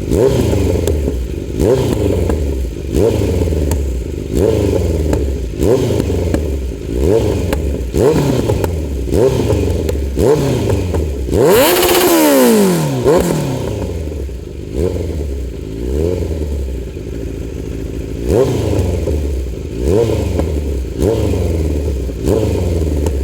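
Kawasaki Z900's inline-four on a loud aftermarket exhaust, still cold from its start, being blipped: quick throttle snaps about once a second, each revving up and falling straight back to idle. A little before halfway comes one longer, higher rev that drops away more slowly.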